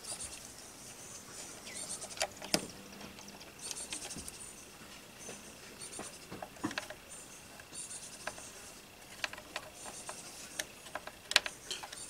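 Small screwdriver working screws out of the GoPro Karma drone's plastic landing gear: scattered light clicks and taps of metal and plastic, with a few sharper clicks about two and a half seconds in and near the end. High, patchy chirping goes on in the background.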